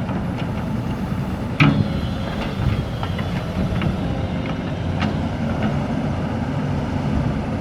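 Backhoe's diesel engine running steadily, with a sharp clank about one and a half seconds in, another near five seconds, and fainter knocks between.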